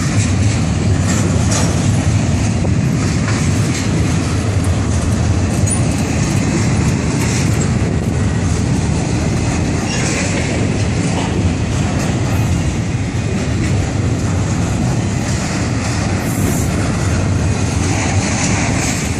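Florida East Coast Railway double-stack intermodal freight cars rolling past at close range: a loud, steady rumble of steel wheels on the rails, with faint clicks here and there.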